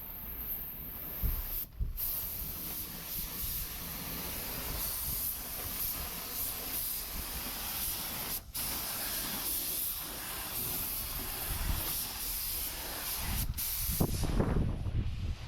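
A steady spraying hiss, the sound of a spray tool run in a truck workshop. It breaks off for short moments about two, eight and thirteen seconds in, with louder low rumbling near the end.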